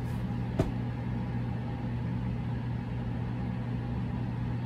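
Steady low background hum, like a distant engine or a running fan, with one sharp click about half a second in.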